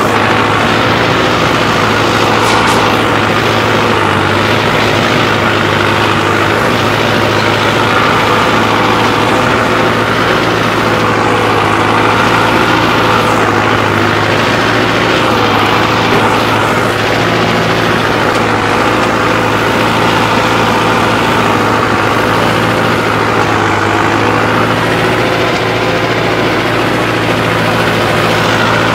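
Mahindra Arjun Novo 605 DI tractor's diesel engine, fitted with a modified injection pump, running steadily at an even working speed.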